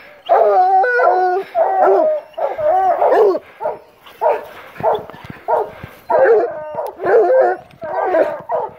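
A pack of coonhounds (black and tan and walker hounds) baying together, overlapping bawls and barks following one another every half second or so: tree baying, the sign that the hounds have a mountain lion treed.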